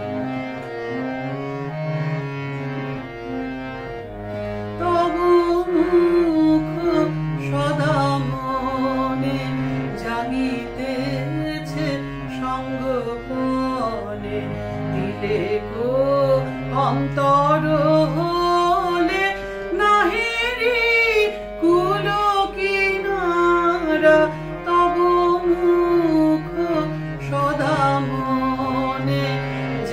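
Instrumental music of an Indian song, with sustained, gliding melodic lines over a steady beat that comes in about three seconds in.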